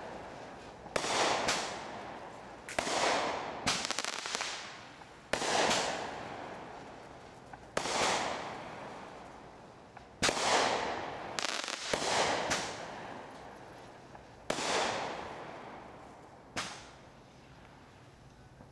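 Backyard aerial fireworks going off: a string of sharp bangs one to two seconds apart, some in quick pairs, each with an echo that fades.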